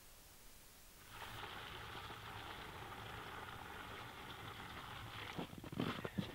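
Hot water poured from a kettle into a plastic basin in a steady stream, starting about a second in. Near the end the pouring stops and a few short knocks follow.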